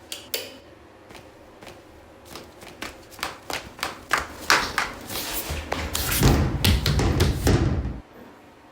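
Foley sound effects: a run of knocks and thuds that come faster and louder, building into a loud low rumble with crashing hits for about two seconds, which stops abruptly.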